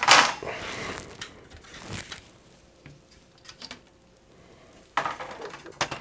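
Workbench handling noises: a knock and short clatter at the start, a few faint ticks, then about five seconds in a brief scraping rustle ending in a click, as the PS4 circuit board and its aluminium heatsink are moved about on the silicone mat.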